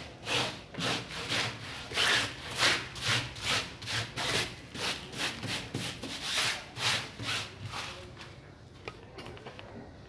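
Hand sweeping loose potting soil across a cloth-covered table in quick repeated rubbing strokes, about two to three a second, stopping about eight seconds in.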